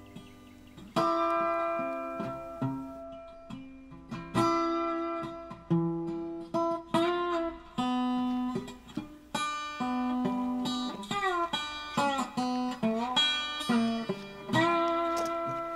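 Background music: acoustic guitar picking single notes and short phrases, some notes sliding up or down in pitch.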